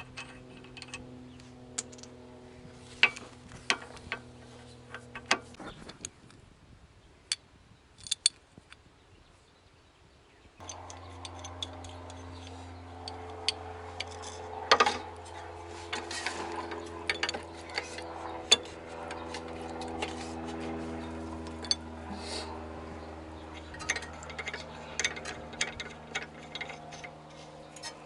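Scattered sharp clicks and knocks of metal hand tools over a steady hum. The hum drops away about five seconds in and returns louder, with more pitches, about ten seconds in.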